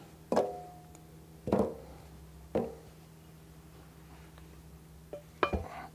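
Wooden blocks set down on a wooden workbench: three sharp knocks about a second apart, the first with a brief ring, then a double knock near the end as the gearbox housing is set onto the blocks.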